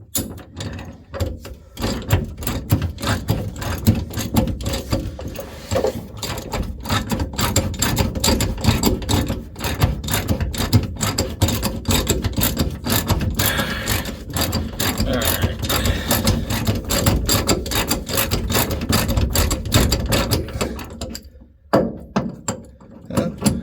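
Ratchet wrench clicking rapidly as a truck's shock mounting bolt is turned. It stops briefly near the end, then starts again.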